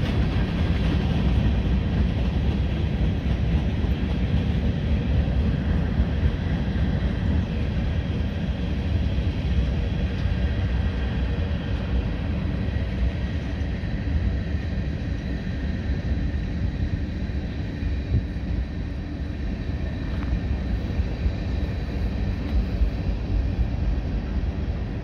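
Freight train of tank cars and covered hoppers rolling past at steady speed: a continuous rumble of wheels on rails, with a faint high steady tone over it.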